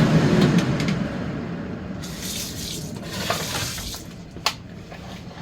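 Kitchen tap running into a sink, the stream louder for a couple of seconds midway, then a single sharp clack near the end.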